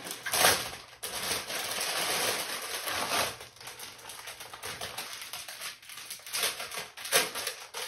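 Clear plastic packaging crinkling and rustling in irregular handfuls as baby socks and a hat are unwrapped, with the sharpest crackles about half a second in and again near the end.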